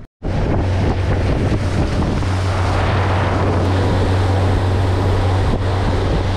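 Yamaha 115 outboard motor running steadily at speed, with the rush of the boat's wake and wind buffeting the microphone. A constant low hum sits under a loud, even hiss.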